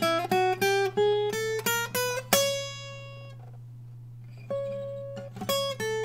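Steel-string acoustic guitar playing a quick run of single plucked notes climbing in pitch, the last one left to ring, as a melodic exercise over the E chord. After a short pause, another short phrase of notes starts about four and a half seconds in.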